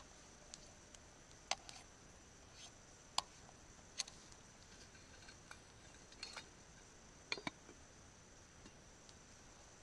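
A spork knocking lightly against a metal camping pot of rice now and then, a few separate clicks, then the pot's metal lid set on with a quick double clink late on.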